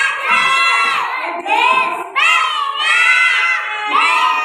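A group of small children singing in unison at the top of their voices, half-shouted, in loud phrases of about a second with short breaks between them.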